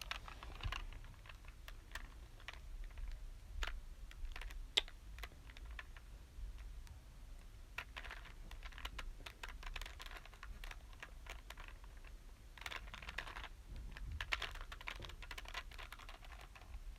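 Plastic Rubik's Cube being twisted by hand: the layers turn with sharp clicks and clacks, scattered at first and in quick runs of clicks later on.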